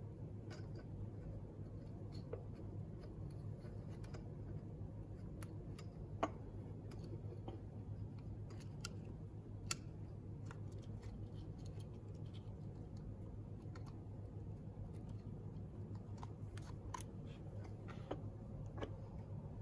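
Scattered small clicks and rustles of hands fitting cables and the plastic display housing back onto an electric scooter's handlebar stem, over a steady low hum.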